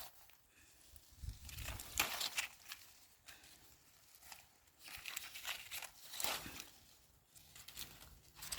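Dry leaves and stalks of cowpea plants rustling and crackling as pods are picked by hand, in two spells of rustling about a second in and about five seconds in.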